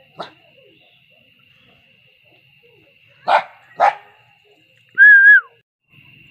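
Small dog barking: a short yip just after the start, then two sharp loud barks about half a second apart. Near the end comes a loud held whistle-like tone that drops in pitch as it ends.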